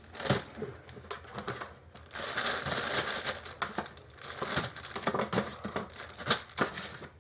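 A plastic bag of shake-and-bake coating mix crinkling and rustling as potato wedges are put into it, with a few light knocks.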